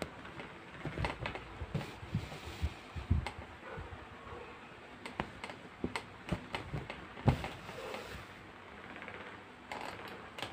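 Irregular small clicks, taps and rustles of hands working short lengths of yarn into fabric stretched on a rug canvas, with a few dull knocks against the frame.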